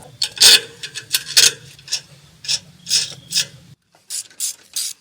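Hand ratchet wrench clicking in short repeated strokes, roughly two a second, turning a nut and bolt.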